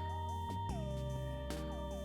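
Background music: a sliding, theremin-like electronic melody over steady held bass notes.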